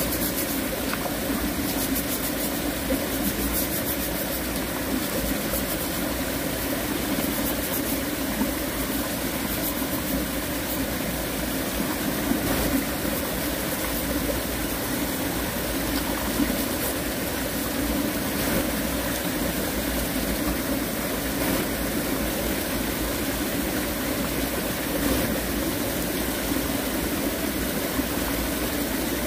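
Shallow mountain stream running over rocks, a steady rushing of water.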